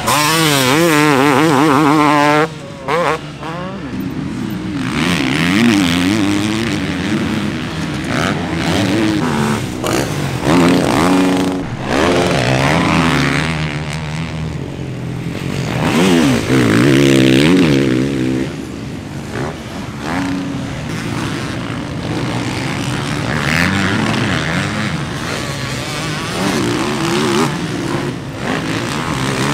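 Motocross bikes racing on a dirt track, their engines revving up and dropping off again and again as the riders accelerate out of corners and back off into them.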